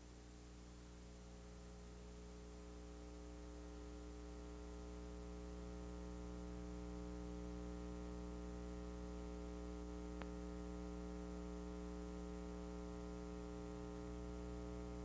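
Low electrical mains hum with a buzzy edge, steady in pitch, slowly getting louder over the first several seconds; a single faint click about ten seconds in.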